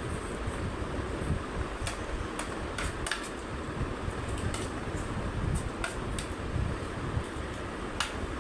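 Steel spoon clinking and scraping against a compartmented stainless-steel thali plate while rice is mixed and scooped, a scattering of short sharp clicks over a steady low hum.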